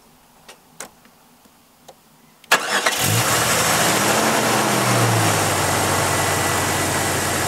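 Jeep 4.0-litre straight-six engine started: about two and a half seconds in it cranks briefly and catches. The revs rise and fall back over the next couple of seconds, then it settles into a steady idle.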